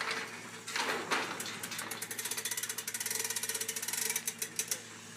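Double-sided geared winch on a Titan West OK Corral Senior portable steel corral being wound, its gears clicking fast and evenly, about ten clicks a second, for roughly three seconds before stopping.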